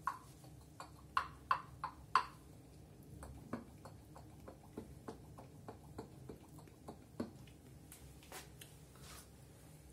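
Empty giant white clam shells clicking and tapping as they are handled. There are a few louder, ringing clicks about one to two seconds in, then a run of fainter ticks two or three a second, and a couple of sharper clicks near the end.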